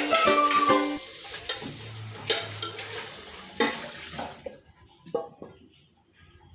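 Background music stops about a second in. Then comes a steady hiss with scattered clinks of kitchenware, a few sharper knocks about five seconds in, and near silence after.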